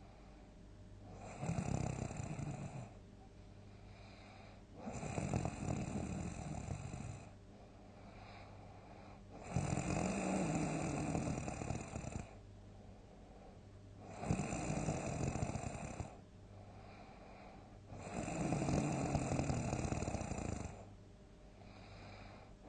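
Loud snoring from a sleeping person: five long snores, about one every four to five seconds, with quieter stretches between.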